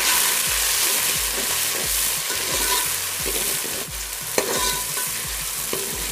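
Tomato pieces sizzling in hot oil with fried onions and whole spices in a metal pot, stirred with a slotted metal spoon that scrapes the pot and gives a few sharp clinks, the loudest about four and a half seconds in.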